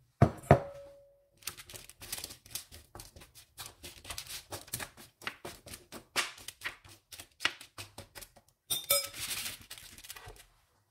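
A metal spoon pushing and spreading pumpkin chunks across a parchment-lined baking tray: a quick run of clacks, scrapes and paper rustling. It opens with two sharp knocks, the second leaving a short ringing tone, and ends in a longer stretch of paper rustling.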